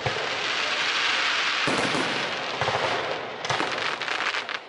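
Aerial firework shells bursting with dense crackling. There is a sharp bang right at the start, a fresh burst under two seconds in, and a flurry of rapid crackles about three and a half seconds in.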